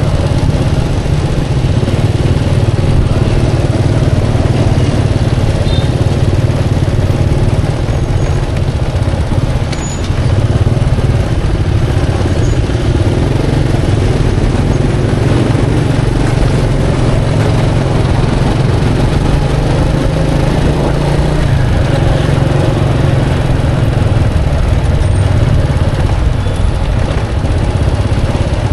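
Steady, loud motorbike and road-traffic noise with a heavy low rumble.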